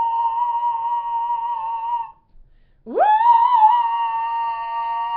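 A man singing in high falsetto: two long held notes, each scooping quickly up from low into the top pitch, with a short break between. The second note carries several pitches at once, a vocal chord of two or three notes sung with one voice.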